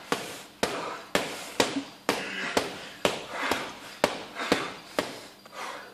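Boxing gloves punching a hanging heavy bag in a steady rhythm, about two punches a second, around eleven in all, stopping near the end.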